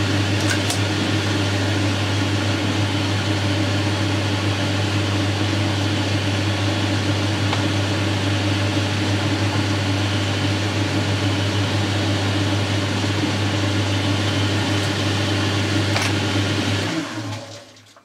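Boxford lathe running steadily with a strong low hum, then switched off near the end and quickly running down to a stop.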